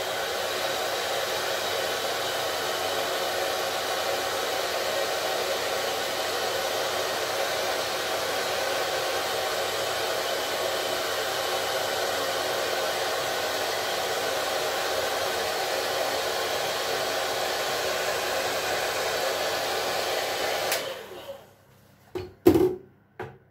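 Handheld hair dryer running steadily on its cold setting, drying holding spray along the edge of a lace frontal wig. It is switched off about 21 seconds in, and a few short knocks follow.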